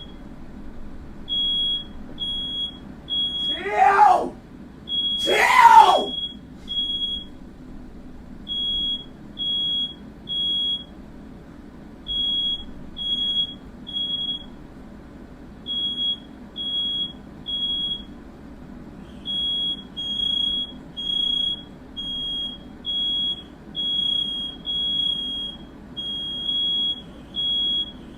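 Smoke alarm beeping in the three-beep-and-pause fire pattern, set off by smoke from a firework. Two loud, pitched cries break in about four and five and a half seconds in.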